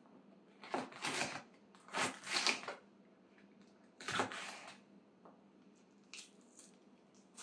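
Kitchen knife slicing through fresh green peppers on a cutting board: three short cuts in the first five seconds.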